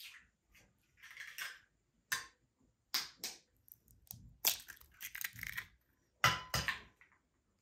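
Raw eggs being cracked open one after another: a series of short, sharp shell cracks and crunches as the shells are broken and pulled apart.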